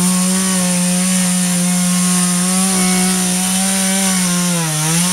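Husqvarna 236 X-Torq two-stroke chainsaw running at high revs, holding a steady pitch, with a brief dip in revs near the end.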